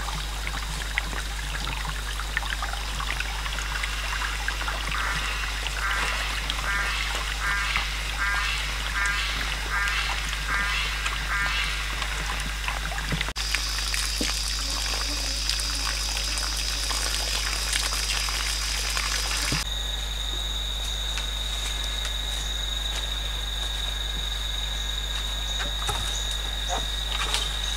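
Forest ambience: insects keep up a steady high buzz, and in the first half a frog croaks about ten times in a regular run, roughly one call every three-quarters of a second.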